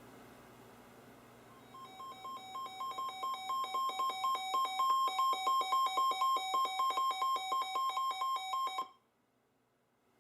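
Weather alert radio's alarm going off for an incoming High Wind Warning: a rapid run of pulsing beeps that alternate between two pitches, growing louder over the first couple of seconds and cutting off suddenly about seven seconds later. Faint radio hiss before it starts.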